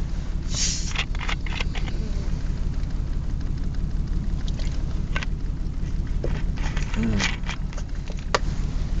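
Steady low drone of a car's engine and tyres heard inside the cabin while driving, with a few short clicks and rustles on top.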